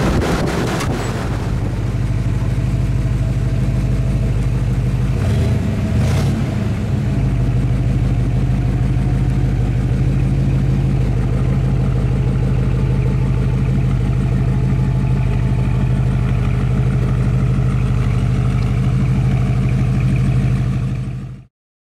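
The 1970 Chevelle SS 454's big-block V8 running on the road, heard from inside the open cabin with wind noise. About seven seconds in it gives way to a steady mechanical hum while the car's power convertible top goes up; the hum cuts off abruptly near the end.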